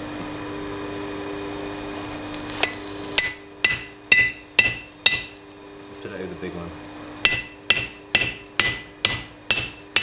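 Hammer blows driving a hardened steel drift through a red-hot steel sword pommel held in tongs on an anvil, to punch the hole for the tang. The hammering starts about three seconds in, at about two ringing strikes a second, in two runs with a short pause between them.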